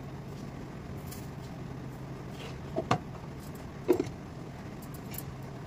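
A steady low hum throughout, with two short knocks about three and four seconds in.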